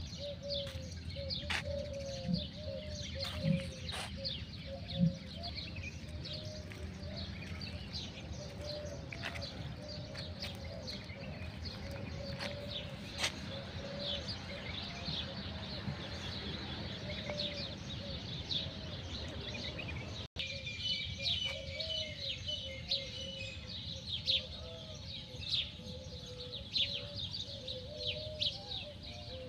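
Small songbirds chirping in the surrounding trees: a constant scatter of short, high calls that grows busier in the second half, over a steady low background rumble. A few soft knocks come in the first five seconds.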